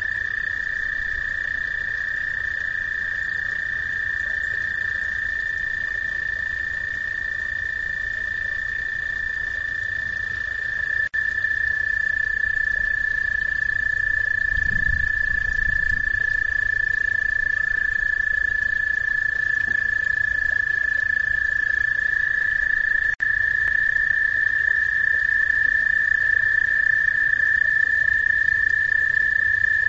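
A chorus of frogs at a pond calling together, a continuous high trill that never lets up and gets louder about a third of the way in.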